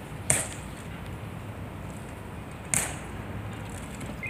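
Ceremonial rifle drill during the guard's rifle inspection: three sharp snaps of gloved hands striking the rifle and its parts clacking.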